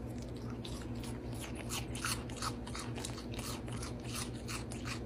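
A baby goat chewing crunchy food: a steady run of short, crisp crunches, about three a second.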